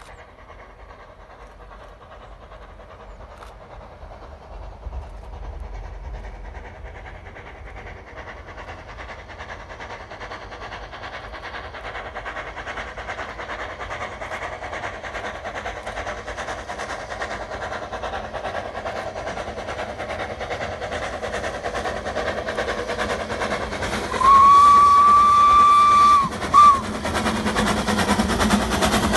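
Two narrow-gauge steam tank locomotives, Lyn and Lyd, double-heading a passenger train on approach, with their running and rail noise growing steadily louder. Near the end one blows a steady whistle of about two seconds, followed by a short toot.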